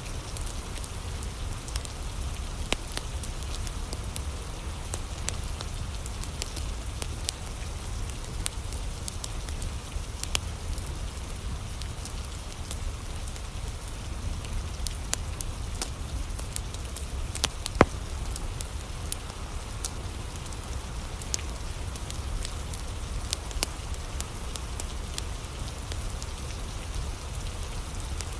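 Wood fire crackling in a fireplace, scattered sharp pops over a steady hiss of rain and a low rumble, with one louder pop about two-thirds of the way through.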